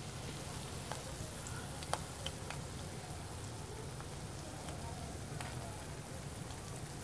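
Fish deep-frying in hot oil in a wok: a steady sizzle with scattered sharp pops and crackles, over a low steady rumble.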